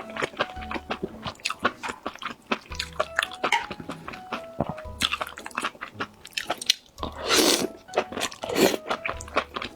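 Close-up crunching and chewing of crisp food, with two louder crunching bites about seven and eight and a half seconds in. Background music with a recurring bass pulse runs underneath.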